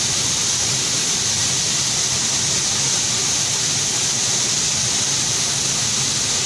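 Waterfall pouring steadily: a constant, even rush of water with no change in level.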